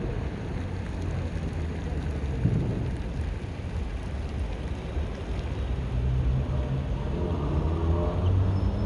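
Outdoor city-square ambience: a steady low rumble of traffic and wind on the microphone, with faint pitched sounds near the end.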